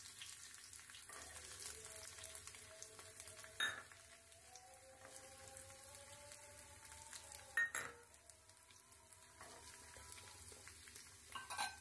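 Hot ghee sizzling faintly in a nonstick frying pan as chopped dry fruits are added, with two short knocks about 3.5 and 7.5 seconds in. A few light clicks of a steel utensil against the pan come near the end.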